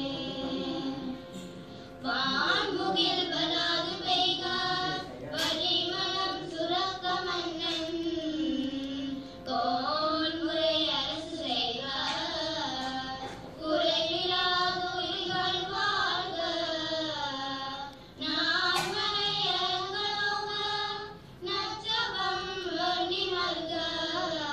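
A group of girls singing a devotional hymn together in phrases with gliding melodic lines, over a steady drone. The voices come in about two seconds in and pause briefly between phrases.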